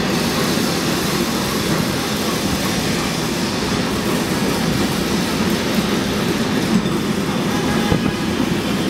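Historic streetcar running along its track, heard from inside the wooden car: a steady rolling rumble and rattle, with a couple of sharper clacks near the end.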